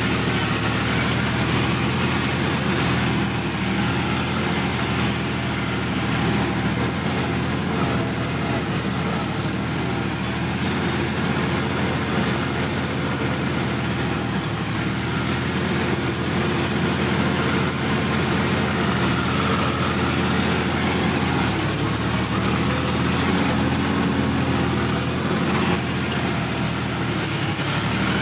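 Sonalika DI-50 RX tractor's diesel engine running steadily as the tractor drives along, heard from the driver's seat beside the upright exhaust stack.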